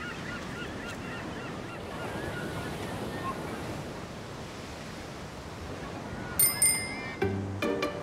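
Ocean surf washing onto a beach with gulls calling in the first few seconds. A bicycle bell rings twice about six and a half seconds in, and plucked-string music starts near the end.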